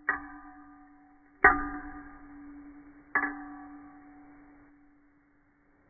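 Metal teaspoon clinking against the inside of a ceramic mug of tea, slowed down in slow motion: three strikes about a second and a half apart, the middle one the loudest, each ringing on and fading away.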